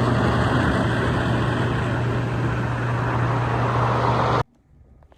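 Steady running noise of a moving vehicle heard from inside it, with a constant low hum under an even rush. It cuts off suddenly about four and a half seconds in, leaving a quiet room with a few faint clicks.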